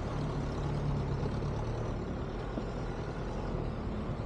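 Open-sided 4x4 jeep driving over rough volcanic sand and rock: a steady low engine hum under an even rumble of the ride.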